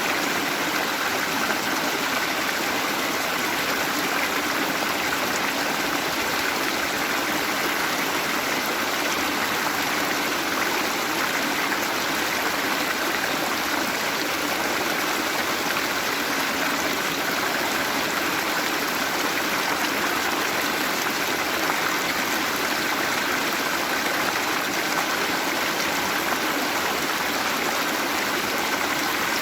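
Waterfall: falling water rushing and splashing in a steady, unbroken hiss.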